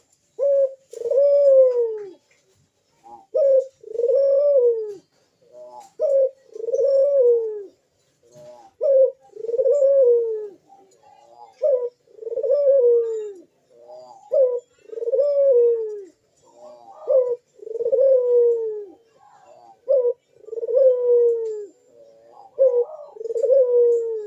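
A puter dove (ringneck dove) cooing loudly and repeatedly, about nine times, each coo a short note followed by a longer, arching, falling 'crooo'. This is the full-voiced 'gacor' cooing that is played as a lure to draw in other puter doves.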